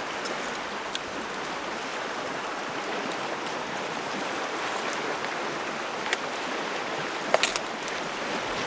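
Steady rush of a fast-flowing river over rapids, with a few light clicks of a spoon against a plate, the loudest pair near the end.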